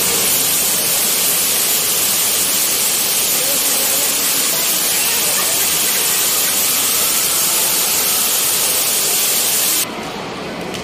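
A loud, steady hiss that cuts off abruptly near the end.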